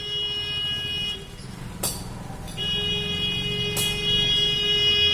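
Two long horn blasts at a steady pitch, the first about a second long and the second about three seconds, with a low rumble underneath and two sharp clicks between and during them.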